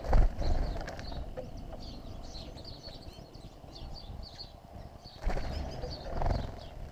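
Small songbirds twittering with short high chirps throughout. Two louder low rushing flutters, one right at the start and another about five seconds in, as birds take off from and land on the feeder tray.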